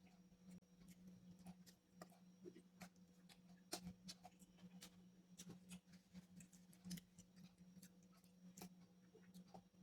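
Faint eating sounds: irregular crunches and mouth clicks of someone chewing, over a low steady hum.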